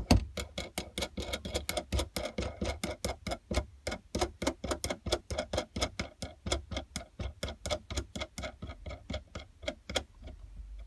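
Ratchet clicking quickly and evenly, about six clicks a second, as a nut is run down onto a bolt of the homemade bender.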